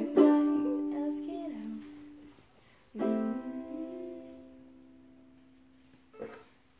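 Ukulele strummed once and left to ring out, then a second chord struck about three seconds in that slowly fades away.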